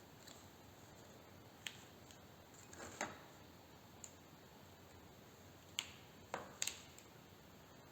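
A handful of light, sharp clicks and taps spaced irregularly over a faint hiss, with two quick taps close together near the end: small handling noises of materials being worked by hand.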